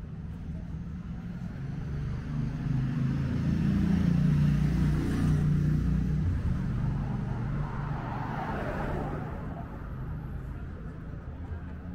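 A passing car on a city street: a low engine hum swells and passes close, loudest about four to five seconds in, then a tyre rush of another passing car near the nine-second mark over steady street traffic.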